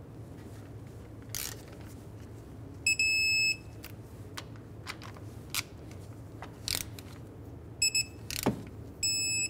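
Digital torque wrench beeping as the caliper slider pin bolts reach their 26 ft-lb torque: one long beep about three seconds in, then a few short beeps near the end. A few sharp clicks of the tool on the bolts fall in between.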